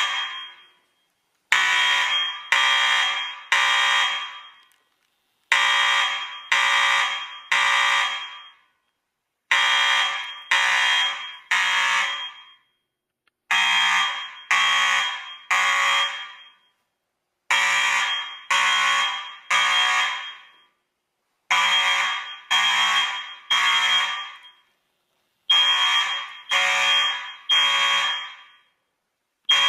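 Fire alarm sounding in the temporal-three evacuation pattern: three pulses about half a second apart, each starting sharply and fading, then a pause of about a second and a half, repeating every four seconds. It was set off by pulling a manual pull station.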